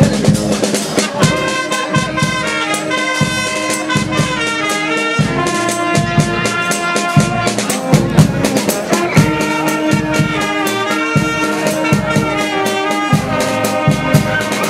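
A street brass band playing a tune: trumpets and saxophones over a sousaphone bass line, with a steady drum beat.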